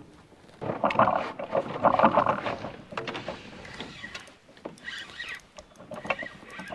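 Knocking and splashing noise from a canoe on the water: two loud, rough bursts about one and two seconds in, then lighter knocks and clicks.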